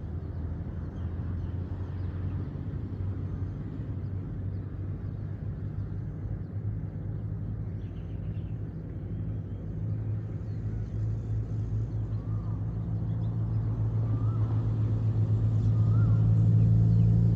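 A motor vehicle's engine runs with a steady low hum and grows louder over the second half.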